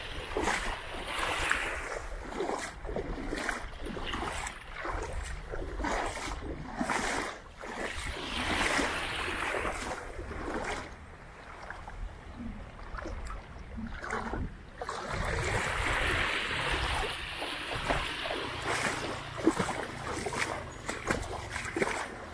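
Small sea waves washing up the beach and drawing back, swelling every several seconds, with scattered splashes and trickling.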